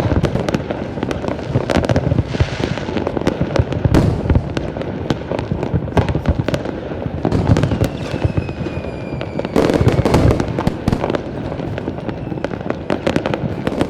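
Fireworks display: a dense, irregular run of bangs and crackling, heavier volleys every few seconds. About eight seconds in, a whistling shell sounds for a second and a half, sliding slightly down in pitch.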